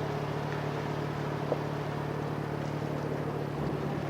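An engine running steadily with a constant low hum and a wash of noise, with one short click about a second and a half in.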